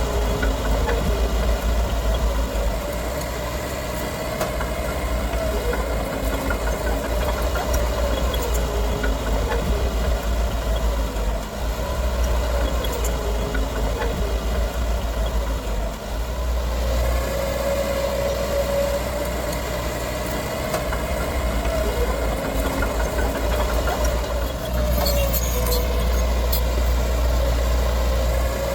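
Heavy diesel engine of earthmoving machinery running continuously, its pitch repeatedly dipping and rising as the load and throttle change, with a strong low rumble underneath.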